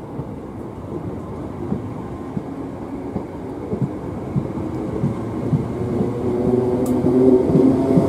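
A British Rail Class 321 electric multiple unit moving off along the platform, getting steadily louder, its wheels knocking over rail joints. From about six seconds in, the hum of its traction motors builds as it gathers speed.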